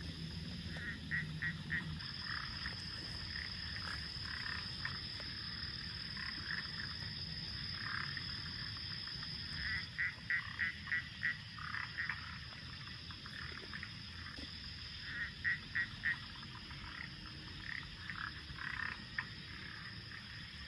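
Frogs croaking at night in short runs of three to six quick calls, about three a second, with a pause between runs. Underneath is a steady high-pitched ringing and the even hiss of rain.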